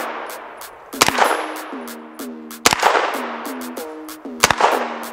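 Three single shots from a B&T APC9 Pro 9mm carbine, about one and a half to two seconds apart, each trailing off, over background music with a steady beat.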